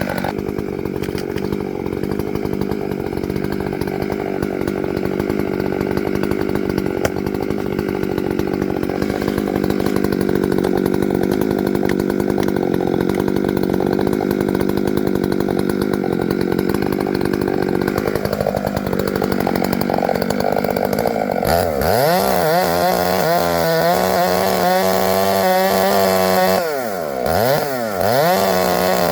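Two-stroke chainsaw running at high revs, cutting into poplar wood with a steady engine note. About 22 seconds in the sound turns swirling and wavering, and near the end the engine eases off briefly before revving up again.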